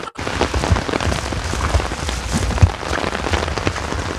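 Heavy rain drumming on an open umbrella overhead: a dense, even patter of drops with a low rumble underneath. The sound cuts out for an instant right at the start.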